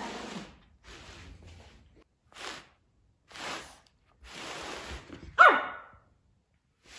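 Pomeranian puppy making a few short, rough growling bursts, then one sharp yip that falls steeply in pitch about five and a half seconds in.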